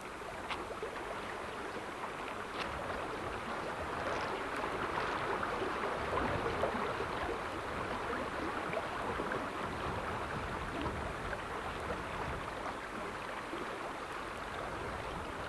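Shallow stream running over rocks: a steady rush of water that grows a little louder after the first few seconds.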